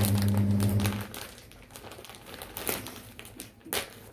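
Clear plastic clothing bag crinkling and crackling as it is handled, with sharper crackles near the end. A steady low hum cuts off about a second in.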